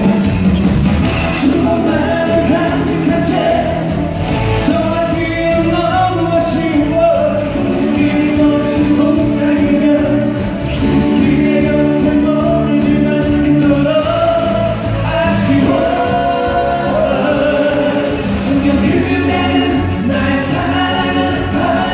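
Live amplified band music with singing, a Korean pop song played in a concert hall with a tambourine in the mix.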